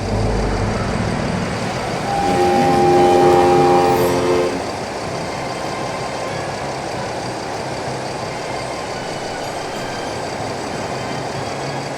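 Vehicle sound effect: a steady engine rumble, with a long horn blast sounding a chord of several notes about two seconds in, lasting roughly two and a half seconds.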